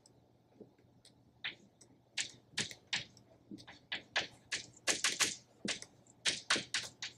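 Chalk tapping and scraping on a blackboard as words are written: a quick, irregular run of sharp little clicks.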